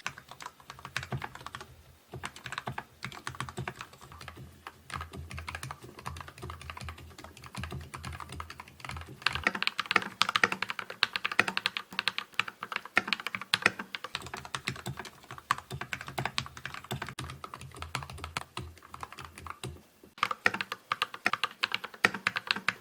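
Fast, continuous typing on a custom Skyloong GK61 mechanical keyboard fitted with upgrade switches and keycaps, a typing sound test. The keystrokes get louder about nine seconds in and stop briefly near the end before resuming.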